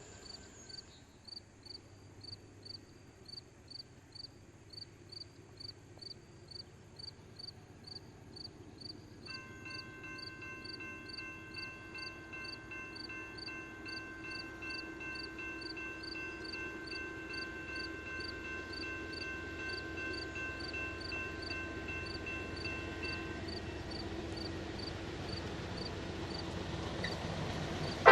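Grade-crossing bell ticking about twice a second while an Amtrak P42 diesel locomotive approaches, its rumble growing steadily louder. A steady high whine joins about a third of the way in and fades near the end.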